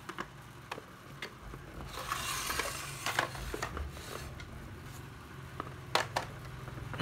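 Handling noise from tools being moved about: scattered sharp clicks and light knocks, with a stretch of rustling about two to three seconds in.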